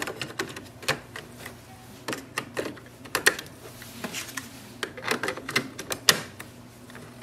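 Plastic clicks and clacks of printer ink cartridges being pushed down into an Epson WorkForce WF-7820's cartridge holder and snapping into their locked position, a dozen or so short sharp clicks spread through.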